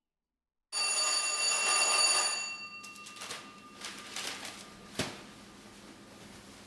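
A doorbell rings with one sudden bright stroke of several bell tones that ring on and fade over about two seconds. Afterwards a newspaper rustles and is set down with a sharp tap.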